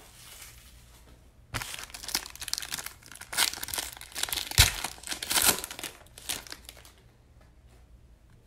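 Foil trading-card pack being torn open and crinkled in the hands, a dense crackling from about a second and a half in until about seven seconds. A sharp knock near the middle is the loudest moment.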